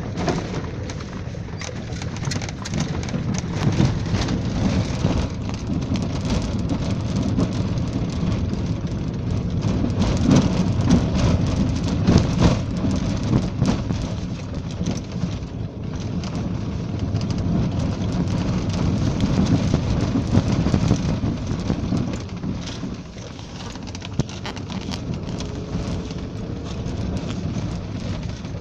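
Road noise heard from inside a moving vehicle, with a low, uneven rumble and many small knocks and rattles, mixed with wind buffeting the microphone at the side window.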